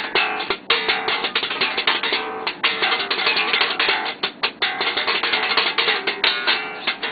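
Bass guitar played with a very fast slap-bass technique: rapid strings of percussive slaps and pops, broken by a few short pauses.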